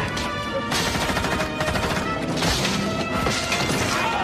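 Mixed war-film battle soundtrack: a fusillade of gunfire and bullets striking a tree, over sustained background music.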